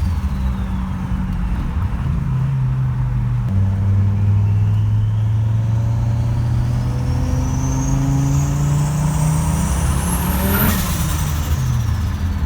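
Fiat Marea Turbo's turbocharged five-cylinder engine under hard acceleration, with the turbo's whistle rising steadily alongside the revs. Near the end the throttle closes with a short rush of air, turbo flutter, and the whistle and revs fall away.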